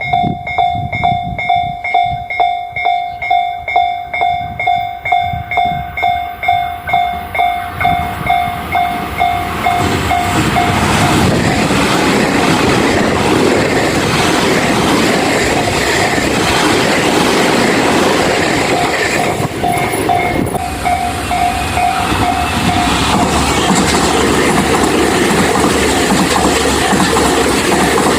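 Japanese level-crossing warning bell dinging rapidly, about two strikes a second. From about ten seconds in, a passing train's rumble and wheel noise buries the bell.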